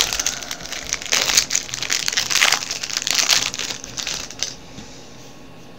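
Crinkling and crackling of a plastic trading-card pack wrapper being torn open and crumpled by hand, stopping about four and a half seconds in.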